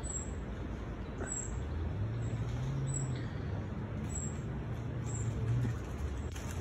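Low rumble of distant traffic, with an engine hum that swells for a few seconds in the middle, and small birds chirping at intervals.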